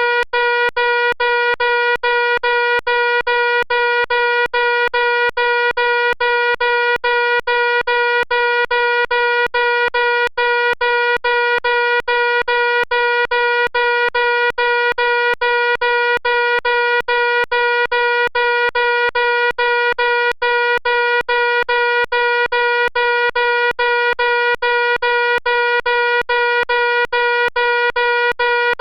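Fire alarm sounding continuously: a loud, steady, buzzing tone with brief regular breaks several times a second.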